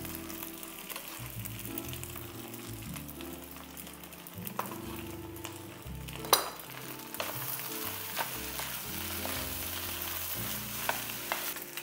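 Adobo fried rice sizzling in a wok as it is stirred and scraped with a wooden spoon, with scattered sharp knocks of the spoon on the wok, the loudest about six seconds in.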